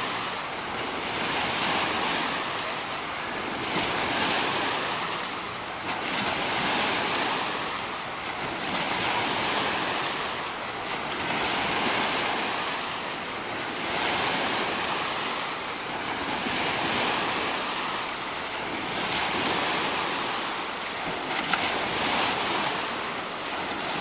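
Wave pool water washing in the shallows, a steady rush that swells and eases every couple of seconds.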